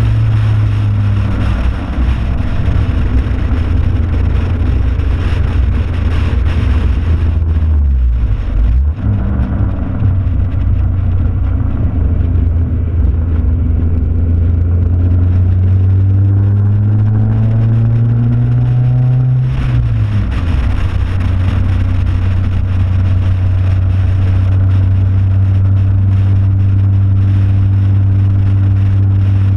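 A car engine pulls hard on a race track under a steady rush of wind. About eight seconds in, the engine note falls away as the driver slows for a corner. It then climbs steadily through the turn and drops back with an upshift about twenty seconds in, before holding steady down the straight.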